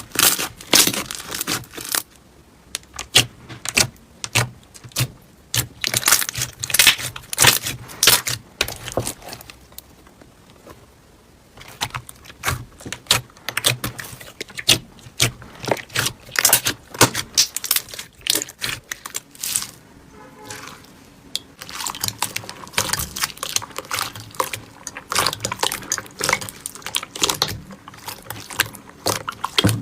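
Slime being squished and poked by hand: a dense, irregular run of wet clicks and pops, with a short lull near the middle.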